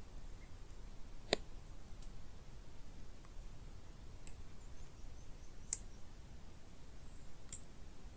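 Woodland ambience heard from inside a tent: a steady low rumble with a few sharp clicks, the loudest about a second in and two more near the end.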